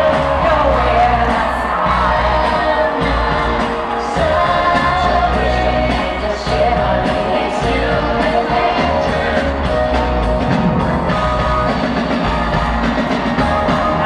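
Live concert music heard from the stands of a stadium: a woman singing over a full band, with occasional shouts from the crowd.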